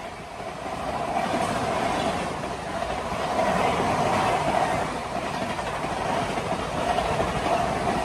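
LHB passenger coaches of an express running through at about 130 km/h: a steady rush of wheel and rail noise with some clatter of wheels over the track.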